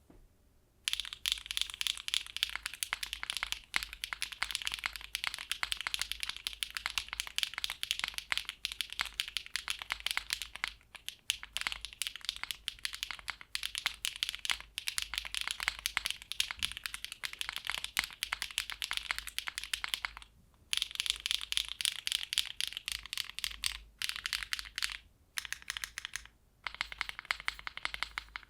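Fast typing on a gasket-mount 60% mechanical keyboard (Matrixlab Magic3, PP plate, GMK keycaps) with factory-lubed HMX Emo linear switches (PC top housing, P2 nylon-blend bottom housing, LY stem). It is a dense run of bright, higher-pitched, clacky keystrokes starting about a second in, with a few brief pauses near the end.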